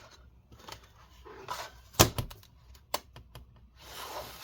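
A few sharp clicks and knocks as a part is popped out of an Acer Nitro AN515-43 laptop, the loudest about two seconds in, then a soft rustle near the end.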